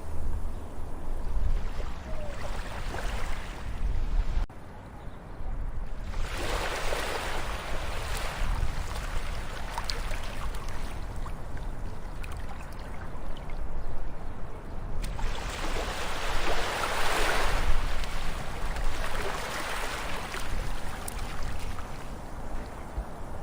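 Ocean waves breaking and washing up a shore, with a constant low rumble of surf. Two big breaks swell and fade about nine seconds apart, with smaller washes between them.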